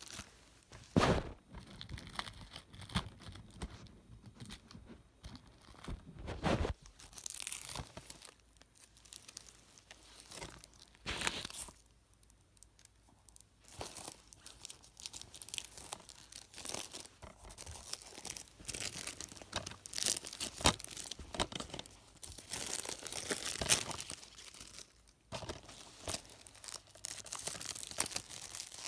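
DVD packaging being torn open and crinkled by hand: irregular tearing and rustling with scattered sharp clicks of handling, pausing briefly about twelve seconds in.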